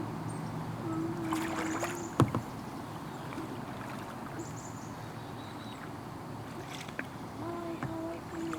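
Kayak paddling: paddle strokes and water sloshing against the hull, with one sharp knock about two seconds in and a few lighter clicks later.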